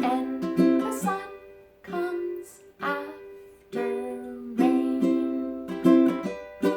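Ukulele strummed in chords, each strum ringing and fading before the next, with short pauses between them: the accompaniment to a children's song.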